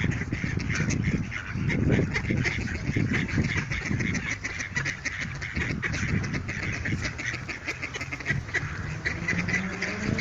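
A group of mallard ducks quacking in quick, overlapping calls over a low rumble. Near the end a low steady hum comes in, rising slightly in pitch.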